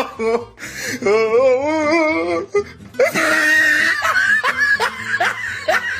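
Meme sound-effect clip: a voice with a wobbling pitch over music, then a run of rhythmic, exaggerated laughing from about four seconds in.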